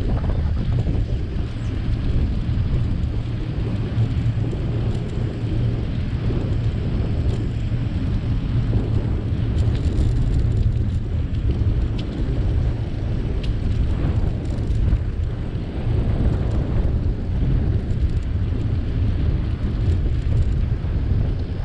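Wind buffeting the microphone while cycling: a steady low rumble with no pitch to it.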